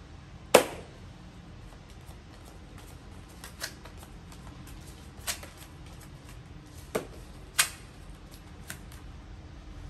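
Playing cards being dealt and handled on a straw floor mat: sharp card snaps and slaps, the loudest about half a second in, then a few more spaced a second or two apart, with faint light ticking between.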